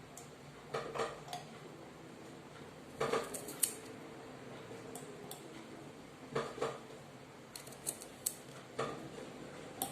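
Red garlic cloves being cut open with a blade: light clicks and taps every second or two, some in quick little clusters.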